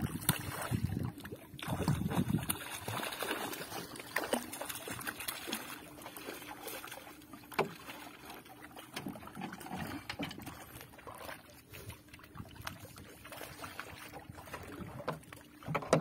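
Water splashing and knocks against a small wooden boat as a giant trevally is handled at the side, loudest in the first few seconds, over a steady low hum.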